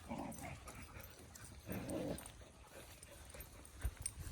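A dog whimpering twice in short bursts, with a dull low thump near the end.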